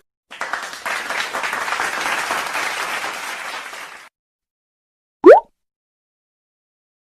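A stock applause sound effect: a crowd clapping that starts suddenly and fades out after about four seconds. About a second later comes a brief, loud tone sliding quickly upward.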